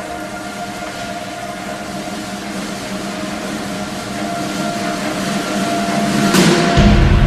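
Eurocopter EC135 twin-turbine helicopter running on the pad, with a steady turbine whine and rotor noise growing gradually louder as it spools up. A louder low sound cuts in suddenly near the end.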